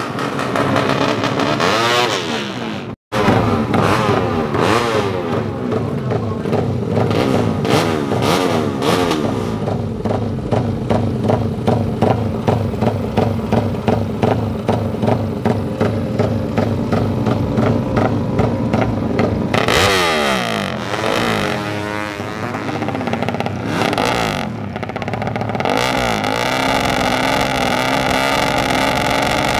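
Yamaha MX King drag bike's tuned single-cylinder four-stroke engine revving hard with a choppy, fast-pulsing beat, the 'helicopter' sound. Near the end the revs fall and rise again, then hold a steady high note.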